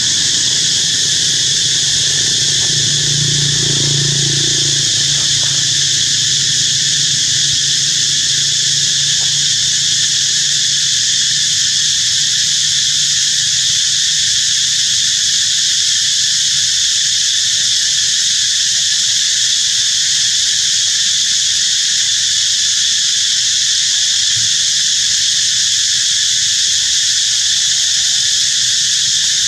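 Insect chorus droning steadily and loudly, a dense high-pitched buzz that never lets up. A faint low hum sits under it a few seconds in.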